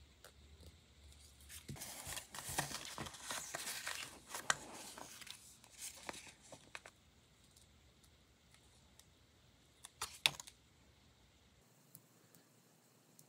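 Thin plastic nail-sticker sheets crinkling as they are handled and shuffled for a few seconds, then a couple of sharp clicks about ten seconds in.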